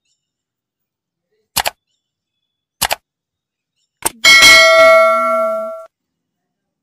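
Three sharp clicks a little over a second apart, then a bell ding that rings out and fades over about a second and a half: a subscribe-button and notification-bell sound effect.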